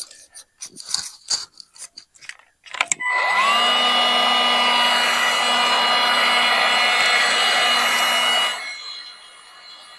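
Clicks and rattles of a frozen truck door handle and lock being worked, then a DeWalt heat gun switched on about three seconds in: its fan motor whine rises quickly to a steady pitch, runs for about five seconds, then drops away.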